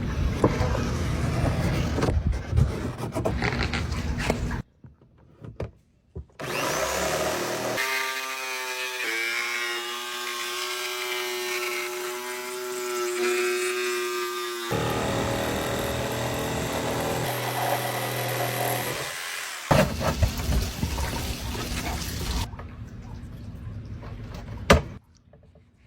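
Power tool work in several short clips cut together. Noisy cutting or scraping runs through most of it, and a motor whines steadily at one pitch for about seven seconds in the middle.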